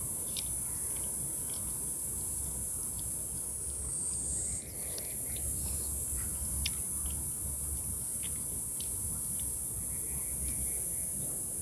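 Cicadas shrilling in a steady, high buzz that dips briefly about four seconds in and then resumes. Scattered short high chirps and a low rumble sit underneath.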